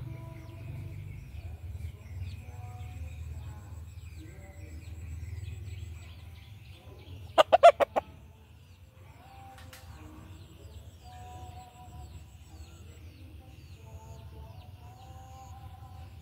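White chickens, a rooster and hens, making soft, scattered clucks and calls, with a quick burst of four loud calls about halfway through. Faint high chirps run behind them.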